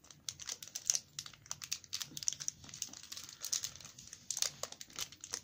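Plastic packaging crinkling and crackling as it is picked at by hand to tear it open: a quick, irregular run of small crackles.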